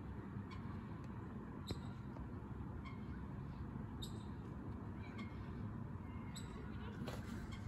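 Steady low outdoor background noise with short, high chirps scattered about a second apart.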